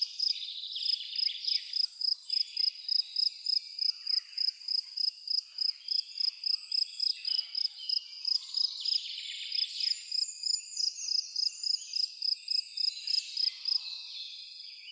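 Evening outdoor ambience: a high chirp repeating evenly about three times a second, with birds singing and warbling over it at irregular moments.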